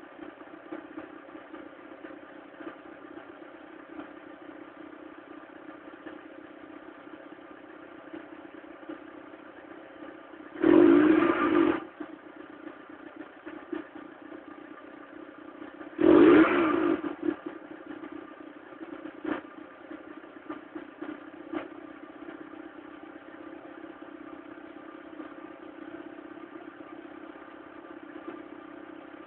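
Mk3 1.4 single-point-injection petrol engine idling with a steady, clattery, tractor-like sound, blipped twice briefly about eleven and sixteen seconds in. The uploader calls the sound bad.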